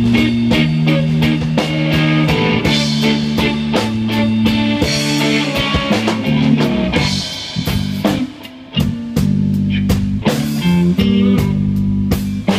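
Live band playing an instrumental groove on electric guitar, bass and drum kit, with steady drum hits under held bass notes. The band briefly drops out about eight seconds in, then comes back in.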